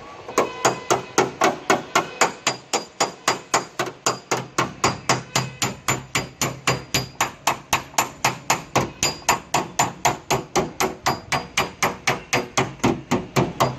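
Hammer tapping steadily on the sheet metal of a car's rear door, about three even blows a second with a slight metallic ring: panel-beating to work out a damaged spot in the door skin.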